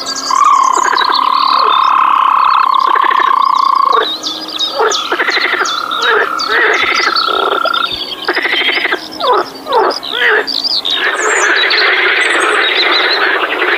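Frogs calling: two long, steady trills one after another, then a run of short pulsed croaks. Near the end these give way to a dense chorus of many frogs calling at once.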